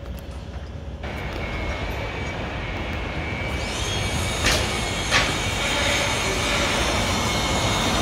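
Construction-site machinery running, a steady rumble that slowly grows louder. A high, steady squeal joins about halfway, and there are two sharp knocks less than a second apart near the middle.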